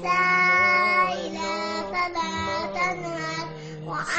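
A three-year-old girl's voice reciting Quranic verses in melodic chant, holding long drawn-out notes of about a second each with small turns of pitch between them.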